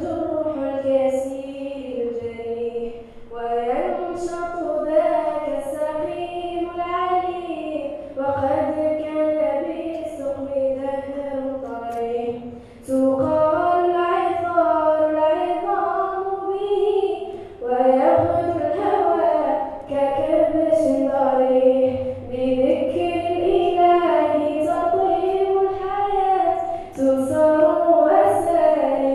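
A girl singing solo into a handheld microphone, amplified over stage speakers: a slow melody in long held notes, broken by short pauses between phrases.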